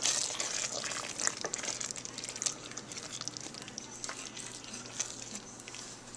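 Hamburger Helper pasta in a milky sauce simmering and bubbling in a stainless steel pot as a spoon stirs it, with scattered light clicks through the bubbling.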